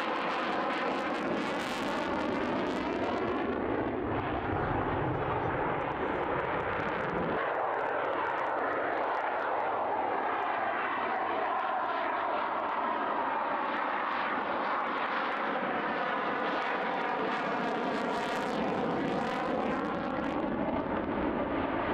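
F-16 fighter jet's engine roaring steadily, with a sweeping, shifting tone as the jet moves past.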